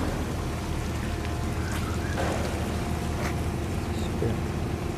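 Fishing trawler's diesel engine running steadily at low speed as the boat comes alongside the quay, a constant low hum with water moving around the hull.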